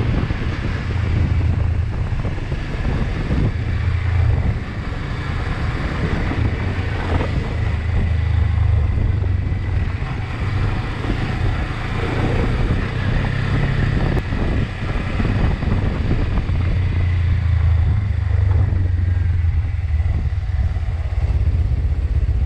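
Motorcycle engine running at steady speed while riding, with a constant low hum that varies a little, under a rush of wind and road noise.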